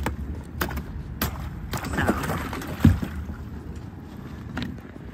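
A pole jabbing down through thin skim ice, breaking it up: sharp cracks and knocks about every half second, then a louder strike near the middle and one more later, over a low steady rumble.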